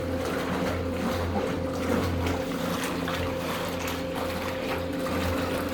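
Bulk milk tank's agitator running, a steady motor hum with the milk being stirred inside the tank to keep it moving and cooling.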